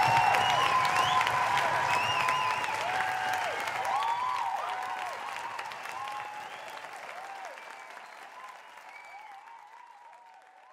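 Crowd applauding and cheering, with many rising-and-falling whoops over the clapping, fading out steadily toward the end.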